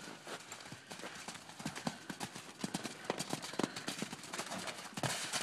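Horse hooves drumming on the dirt of a paddock as a loose horse trots and canters about: quick, uneven thuds, several a second.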